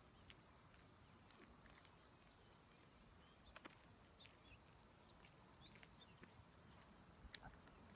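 Near silence: faint outdoor ambience with scattered faint ticks and a few faint, short, high chirps.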